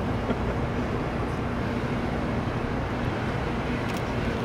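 Steady rushing of helium gas venting from the quench vent of a 4.7 T Varian vertical-bore magnet, the liquid helium boiling off after the magnet has quenched, with a low steady hum underneath.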